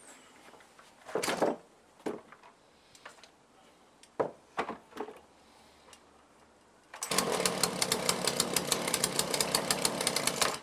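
A few scattered knocks and clicks of handling, then, about seven seconds in, a small two-stroke chainsaw engine running steadily with a fast, even popping, freshly fitted with a rebuilt Walbro carburettor. It cuts off abruptly at the end.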